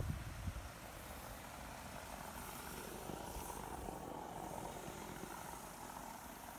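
Live steam model locomotive running: a steady rushing hiss that swells a little in the middle. Wind rumbles on the microphone in the first half second.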